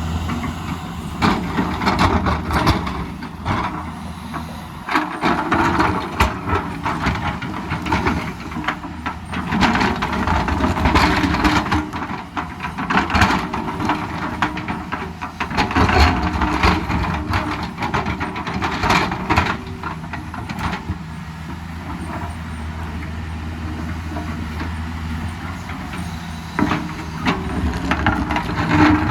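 Excavator's diesel engine running steadily while it digs, with frequent irregular knocks and scrapes of the bucket working rock. A steadier stretch of engine alone comes about three quarters of the way through.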